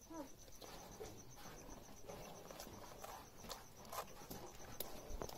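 Buffalo calf suckling at its mother's udder: faint, scattered soft clicks and smacks, with a short falling call right at the start. Crickets chirp in an even, pulsing trill in the background.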